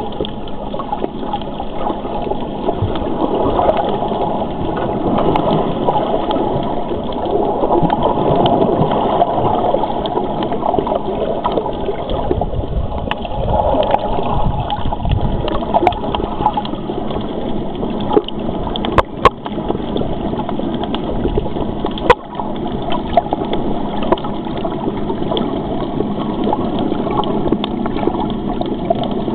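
Churning, gurgling water noise picked up underwater, muffled and steady, with a few sharp clicks about two-thirds of the way through.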